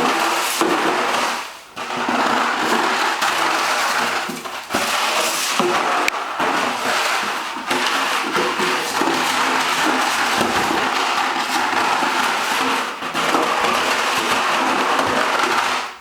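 Empty milk carton crackling and crumpling as a Labrador Retriever puppy chews and shakes it: a dense, continuous run of crinkles and snaps with two brief pauses in the first few seconds.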